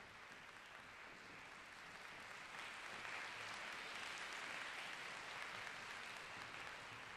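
Concert hall audience applauding, steady clapping that swells a little about two and a half seconds in.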